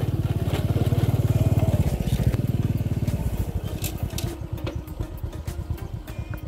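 Small underbone motorcycle engine running as it rides up and pulls to a stop, loudest about one to two seconds in, then settling to a softer idle.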